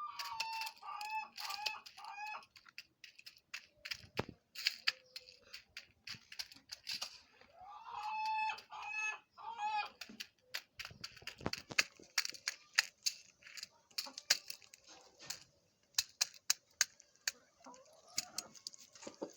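Chickens clucking in short runs of repeated notes, a few seconds apart, among many sharp taps and ticks throughout.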